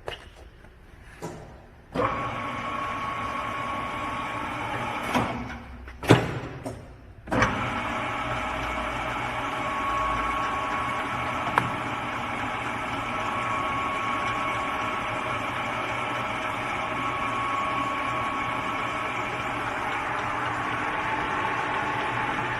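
Sharp 1440F tool room lathe switched on about two seconds in. After a few knocks and a brief dip, its motor and geared headstock settle into steady running with a faint high whine.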